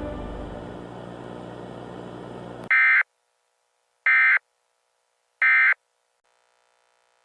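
Dark, scary background music fades and cuts off, then three short identical electronic warbling bursts about a second apart: the Emergency Alert System end-of-message (EOM) data tones that close an EAS broadcast.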